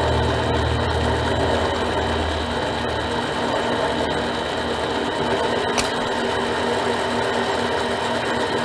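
Harbor Freight mini lathe running steadily while its tool takes a 0.150-inch-deep cut in steel. A low hum drops away about two and a half seconds in, and there is a single click a little past the middle.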